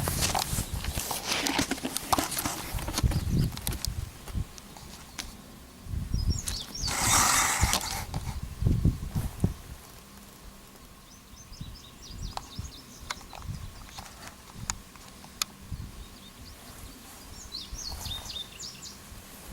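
Birds chirping in short bursts a few times, over rustling and knocking from handling close to the microphone, with one loud rustle about seven seconds in. A faint steady hum runs underneath.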